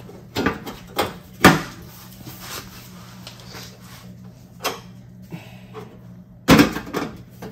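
A thin sheet-steel rear fender patch panel being pressed and shifted against a Mazda Miata's body during a test fit: a handful of sudden knocks and thumps as the panel flexes and bumps the car, the loudest about a second and a half in and a heavier one near the end.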